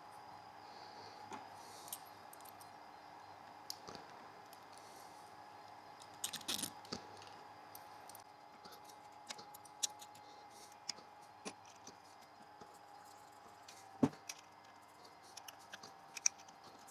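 Scattered small clicks and handling noises of wires and small connector parts being worked by hand, including one sharper click about fourteen seconds in, over a faint steady hum.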